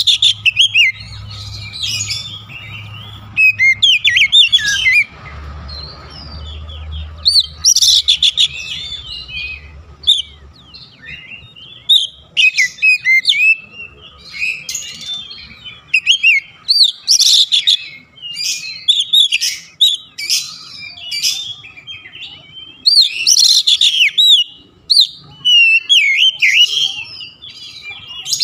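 Male oriental magpie-robin singing loudly and continuously: long, varied phrases of quick whistles, slurred notes and chirps, broken by short pauses. A faint low rumble lies under the first ten seconds or so.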